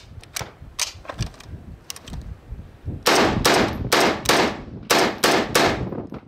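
A few sharp metallic clicks as the FN FAL is loaded. Then, about three seconds in, the 7.62 mm rifle fires a rapid string of about eight shots, roughly three a second, each crack ringing out briefly.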